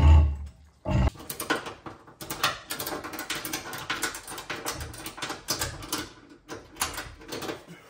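A heavy thump, a second one about a second in, then a long run of irregular clicks and knocks as the rear axle and wheel, held up on a transmission jack, are shifted and worked into position by hand.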